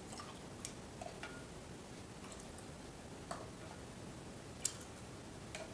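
A few light, irregular clicks and taps of a spoon against a small drinking glass of almond milk, with a sharper click late on.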